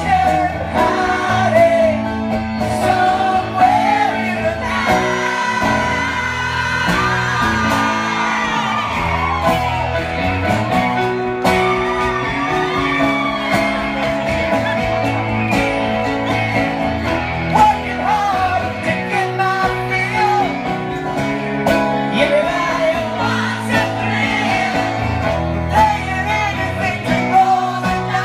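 Live rock band playing: male voices singing into microphones over electric guitar and band accompaniment.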